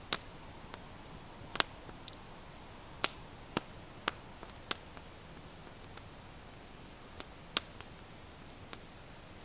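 Wood campfire crackling: irregular sharp pops and snaps over a steady faint hiss.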